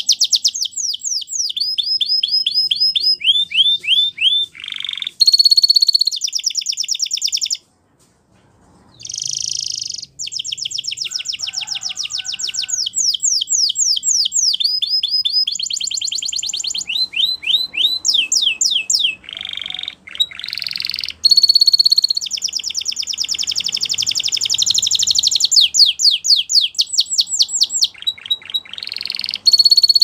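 Spanish Timbrado canary singing: long runs of rapid, evenly repeated notes and trills that change from one phrase to the next, with one short break about a quarter of the way in.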